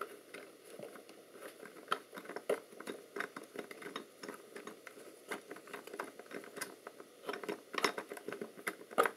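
Irregular small clicks and scrapes of a screwdriver backing out a screw from a bolted-on part of the sight's housing, with a few sharper knocks as the part is handled.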